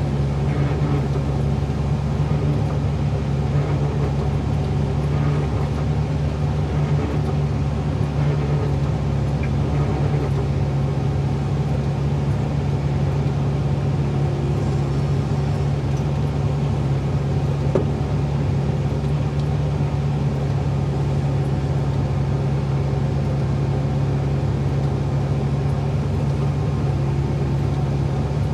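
Excavator engine running at a steady pitch, heard from inside the cab.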